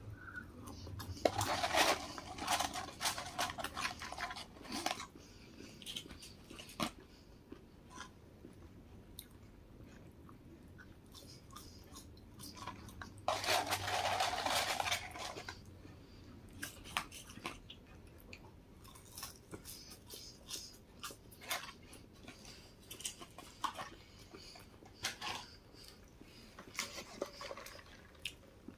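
Close-up eating sounds of a person chewing a McDonald's chicken nugget: scattered short wet mouth clicks, with two louder stretches of dense crackling about two seconds and thirteen seconds in.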